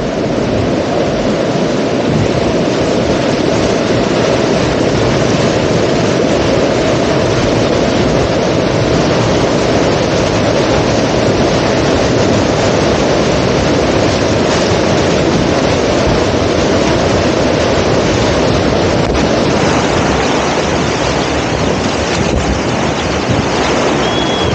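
Loud, steady rush of whitewater rapids churning around an open canoe, heard close up, with wind buffeting the microphone.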